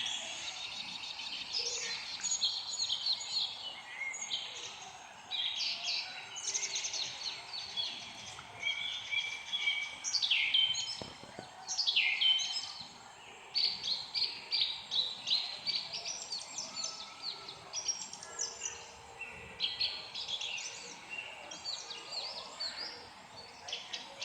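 Several songbirds singing and chirping together in a dense chorus of overlapping trills, rapid repeated chirps and quick down-slurred notes.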